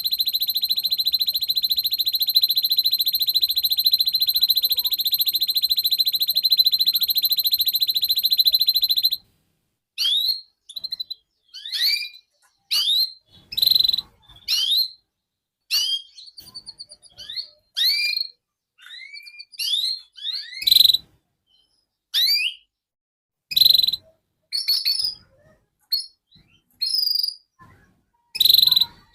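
Domestic canary song: a long, steady, high rolling trill that cuts off abruptly about nine seconds in, followed by a string of separate short whistled notes sweeping in pitch, roughly one a second.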